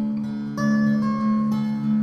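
Background music: a plucked string instrument picks out notes over a steady held low tone, with new notes coming in about half a second in and again near the end.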